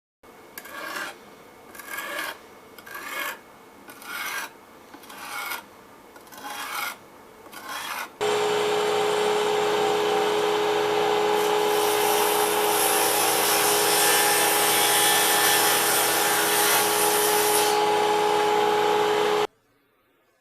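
A whetstone rubbed across a knife blade in the sharpening jig: seven even strokes, about one a second. About eight seconds in it cuts to a louder, steady machine noise with a constant hum, which stops abruptly near the end.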